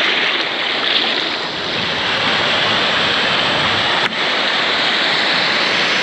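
Jungle river water rushing, a loud, steady wash of noise.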